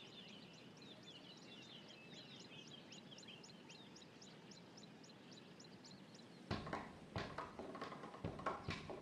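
A bird calling in a rapid series of short high chirps, about four a second, over faint outdoor ambience. About two-thirds of the way in this gives way to irregular sharp knocks and taps, which are louder.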